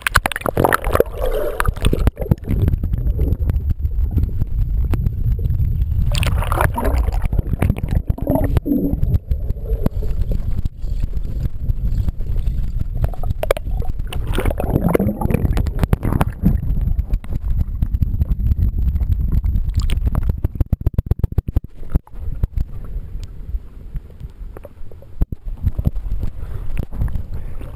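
Water moving around a swimmer, heard with the microphone underwater in a lake: a heavy low rumble with gurgling. Dense clicks and splashes come in the last several seconds as the microphone comes back up to the surface.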